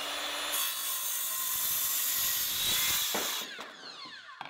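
Makita circular saw crosscutting a 2x4, the blade running steadily through the wood. About three and a half seconds in the trigger is released and the motor spins down with a falling whine.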